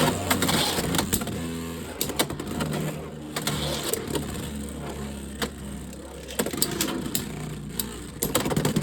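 Beyblade X spinning tops whirring in a plastic stadium, with repeated sharp clacks as they strike each other and the stadium wall during a battle.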